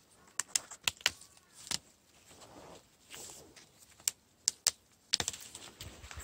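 Sharp snaps and clicks with leaf rustling from a gloved hand pulling and bending a tree's branches and young shoots, irregular, about ten sharp clicks in all.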